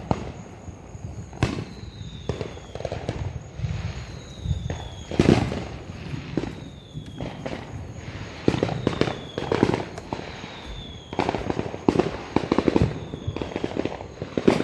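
Fireworks going off: sharp bangs and bursts of firecracker crackling, loudest about five seconds in and coming in dense clusters in the second half.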